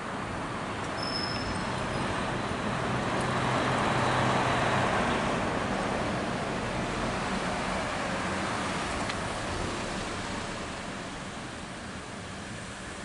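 Road traffic: a vehicle passes, growing louder to a peak about four to five seconds in, then fading.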